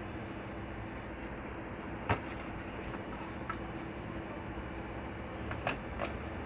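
Faint steady electrical hum and hiss, with a few short sharp clicks: one louder click about two seconds in and a few softer ones near the end.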